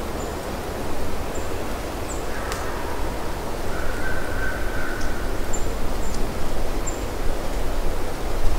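A tom eastern wild turkey gobbling in the distance, faint, from about two to five seconds in, over a steady rushing background noise.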